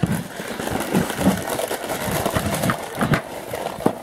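Handling noise: irregular knocks, bumps and taps of hands moving the camera and the small plastic toys, with a couple of sharper clicks near the end.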